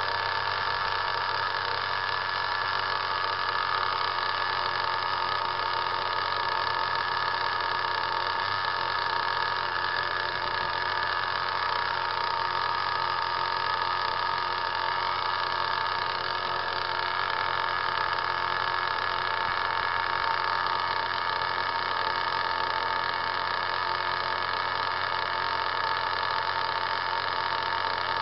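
RC car running steadily on a roller dyno: an even mechanical whine with several fixed pitches that neither rises nor falls.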